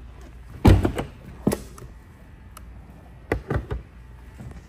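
A handful of dull thumps and knocks. The loudest comes about two-thirds of a second in, another follows about a second and a half in, and a quick run of three comes near the end.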